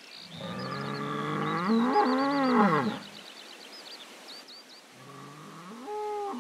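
A cow mooing: one long low call, about two and a half seconds, that rises in pitch and then falls away, and a second moo begins near the end. Faint high chirping sounds above the first call.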